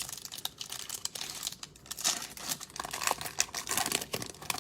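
Foil trading-card packs being torn open and crinkled by hand.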